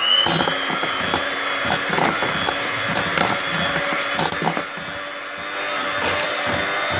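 Electric hand mixer running at speed in a steel pot, its motor whine just settled to a steady high pitch after switching on, with irregular knocks of the beaters against the pot. It is creaming butter with icing sugar into buttercream.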